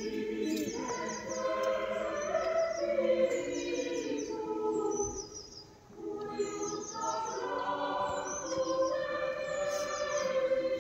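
Choir singing unaccompanied from the top of Magdalen Tower: slow, sustained chords that pause briefly about five seconds in before the next phrase. Small birds chirp in short repeated trills over the singing.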